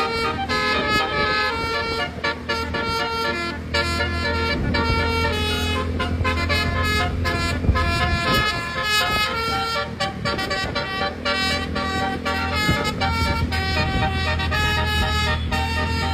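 Basuri (telolet) multi-tone musical horn playing a fast melody of short stepped notes, over a steady low engine hum.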